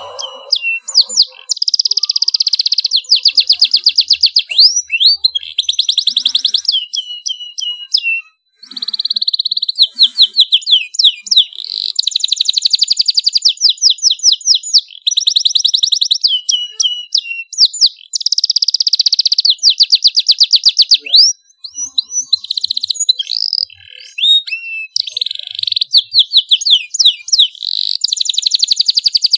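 Domestic canary in full, loud song: long phrases of rapid trills of repeated notes mixed with sweeping slurred notes, broken only by brief pauses about eight and twenty-one seconds in.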